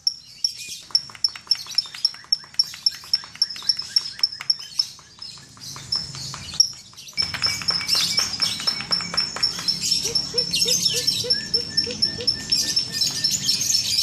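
Lovebirds chirping: short high calls repeating about four times a second, then, about seven seconds in, an abrupt change to louder, denser chattering from many birds over low background noise.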